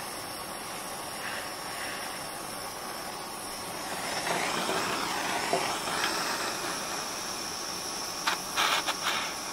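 Handheld propane torch burning with a steady hiss, its flame heating a steel bar held in a vise; the hiss grows louder about four seconds in as the torch is brought up to the bar. A few sharp clicks near the end.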